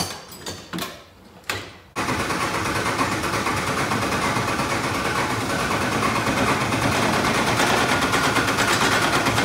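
A few separate knocks, then about two seconds in a loud machine starts suddenly and runs steadily with a fast, even rattle.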